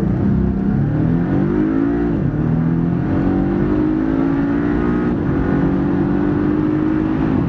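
Porsche 718 Cayman's 2.0-litre turbocharged four-cylinder, with no sports exhaust and no petrol particulate filter, heard loud from inside the cabin under full-throttle acceleration towards 7,000 rpm. The pitch climbs, then drops briefly at upshifts about two seconds in and again about five seconds in.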